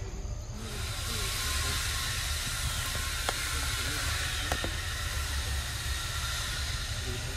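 Steady outdoor hiss that starts abruptly about half a second in and carries on over a low rumble, with a few faint clicks.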